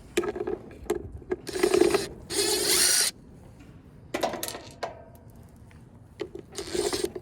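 Irregular bursts of clicking and rattling from hand tools and metal parts being worked on a gas furnace, with short quiet gaps between.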